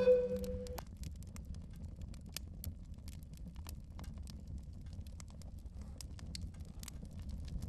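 A held musical note cuts off under a second in, leaving a faint steady low rumble with scattered soft clicks.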